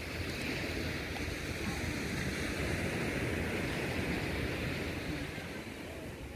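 Small waves washing onto a sandy shore, swelling about a second in and easing off near the end, with wind buffeting the microphone as a low rumble.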